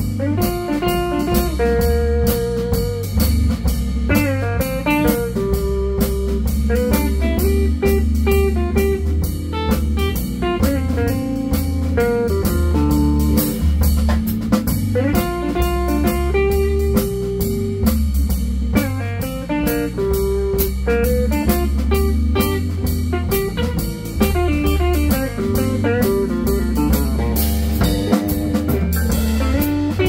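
Live blues-rock trio of electric guitar, keyboards and drum kit playing a song with a steady beat and a low bass line.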